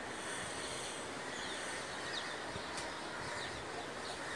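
Faint squeaks and scratches of a marker pen drawing lines along a ruler on a whiteboard, a few short squeaks over a steady background hiss.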